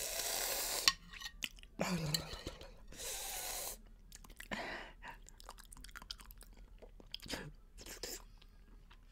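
A person eating spoonfuls of jelly in a very hot chili sauce: chewing and mouth noises with small spoon clicks. Three loud hissing breaths come in the first four seconds, one with a short hum, and two short falling groans follow later, a reaction to the burning heat.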